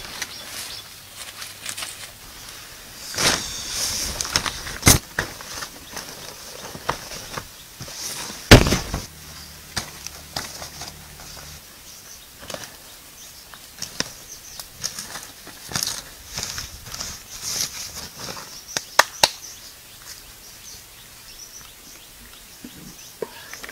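Large banana leaves rustling and flapping as they are handled and laid out, with sharp cracks and knocks at irregular intervals, the loudest about eight seconds in.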